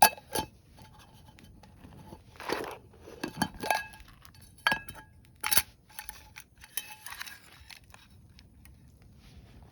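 Irregular clinks and knocks of metal cookware and utensils being handled, some ringing briefly, with rustling in between. The sharpest clink comes right at the start.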